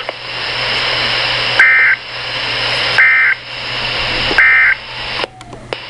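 Emergency Alert System end-of-message data tones: three short, shrill two-tone warbling bursts about a second and a half apart, over radio static hiss that swells between bursts. The three bursts mark the end of the alert. A couple of clicks near the end as the static drops away.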